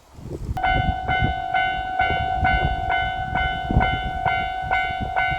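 Japanese railway level crossing warning bell starts ringing about half a second in. It gives a steady, even ding a little over twice a second, over a low rumble.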